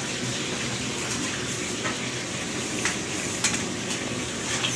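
Food frying in hot oil in large iron woks: a steady sizzling hiss, with a few light clinks of metal bowls and utensils.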